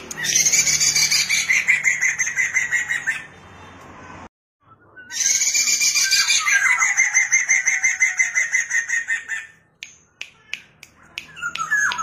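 Black-throated laughingthrush (poksay mandarin) singing loudly: two long phrases of rapidly repeated whistled notes with a short break between, followed by a run of sharp clicks near the end.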